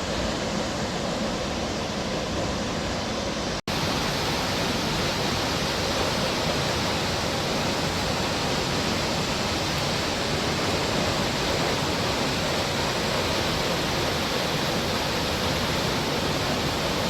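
Reichenbach Falls crashing down in a steady, loud rush of water, broken once by a split-second gap about three and a half seconds in.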